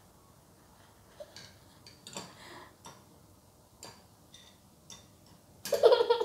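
Scattered light ticks and scratches from a kitten's paws and claws on a wire cage as it plays with a ribbon. Near the end comes a short, louder burst of a voice.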